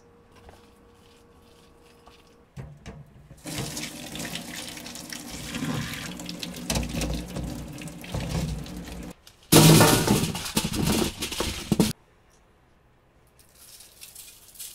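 Hot cooking water and boiled potato chunks poured from a pot into a mesh strainer in a steel sink. The water splashes and drains for several seconds, then comes a louder rush as the last of the pot empties, which cuts off suddenly.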